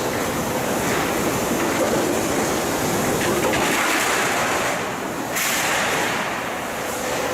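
Steady industrial machine noise of a KOHAN cut-to-length steel coil line running, with a faint steady hum and an abrupt change in the hiss about five seconds in.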